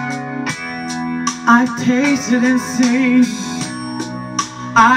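Guitar-led worship music with a woman singing along into a handheld microphone, holding one long wavering note about halfway through without words.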